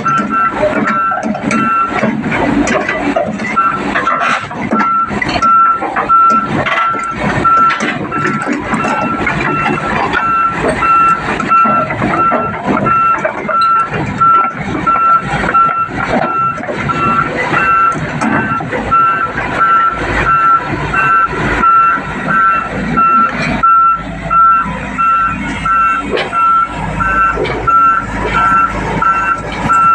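Excavator's travel alarm beeping at a steady, even pace over its running diesel engine, with frequent knocks and clanks of metal.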